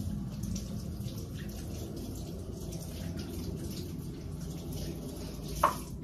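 Kitchen sink tap running, water splashing steadily, with one short, sharp clink near the end.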